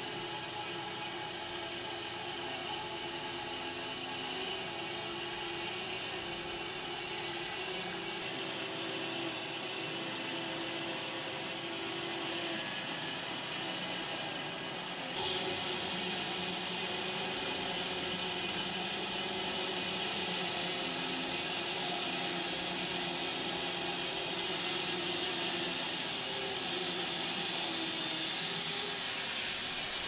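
Homemade wide-cut bandsaw mill sawing through a silver maple log: a steady engine drone under a high hiss from the blade in the wood. It gets louder about halfway through.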